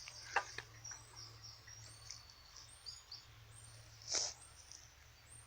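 Birdsong: faint, short high chirps and little whistled glides, with a louder call about four seconds in, over a steady low hum.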